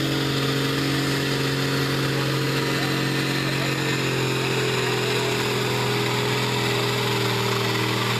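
Farm stock pulling tractor's diesel engine running steadily at one speed while hooked to the pulling sled, waiting at the line for the green flag.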